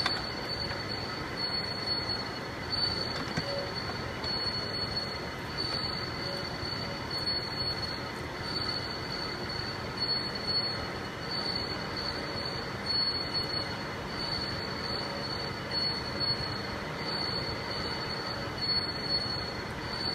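CNC router spindle running with a steady high-pitched whine over cutting noise while boring a bearing housing bore.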